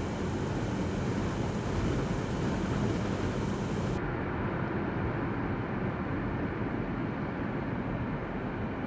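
Steady engine and tyre noise of a car on the move, heard from inside its cabin. About four seconds in, the sound turns suddenly duller.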